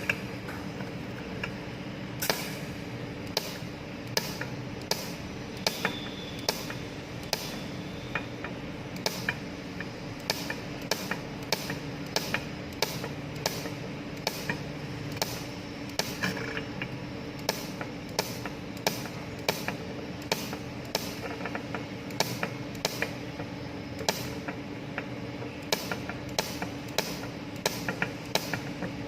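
Cold welding machine (pulsed argon-shielded tungsten spot welder) firing spot welds along an outside corner of thin stainless steel plate, each pulse a short sharp crack, coming unevenly about one to two a second over a steady low hum.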